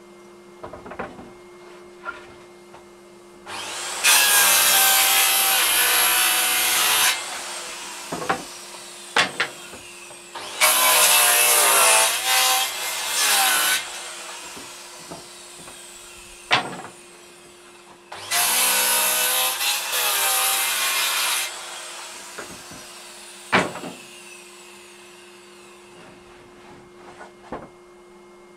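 Makita circular saw cutting through pieces of scrap wood three times, each cut lasting about three seconds, the blade winding down in falling pitch after each one. A Henry vacuum cleaner runs steadily underneath as dust extraction, and sharp knocks come between the cuts.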